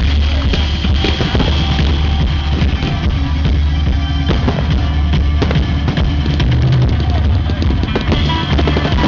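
Loud rock music with a heavy drum beat, mixed with the bangs and crackle of fireworks going off.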